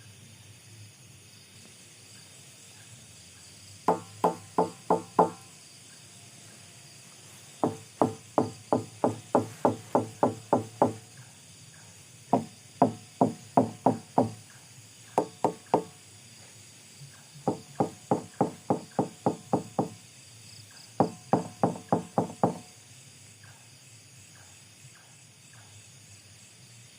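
Six runs of short, hollow, pitched knocks, each run three to a dozen knocks at about four to five a second, starting about four seconds in and stopping a few seconds before the end.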